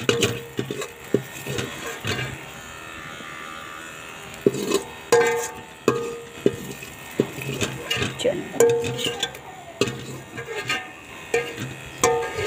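A perforated metal skimmer scraping and knocking against the inside of a metal cooking pot, many irregular knocks, each with a short metallic ring.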